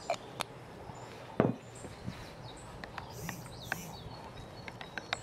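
A metal spoon stirring a thick sauce in a ceramic bowl, clinking against the sides in quick irregular taps from about three seconds in, after a single sharper knock about a second and a half in. Birds chirp faintly in the background.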